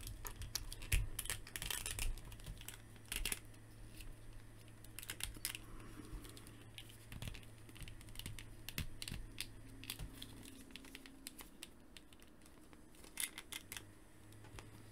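Light, irregular clicks and rubbing from a McFarlane DC Multiverse Batman plastic action figure's joints and limbs as it is handled and posed, over a low steady hum.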